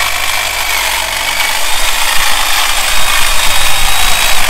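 Corded electric hedge trimmer running steadily as its blades cut back an overgrown shrub.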